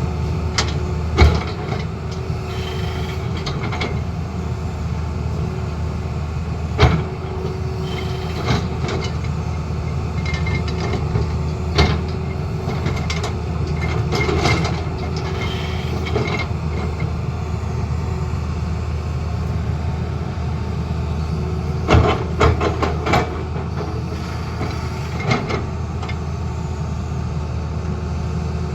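Tata Hitachi excavator's diesel engine running steadily under work, with sharp knocks now and then, a few seconds apart and in a short cluster about two-thirds of the way through.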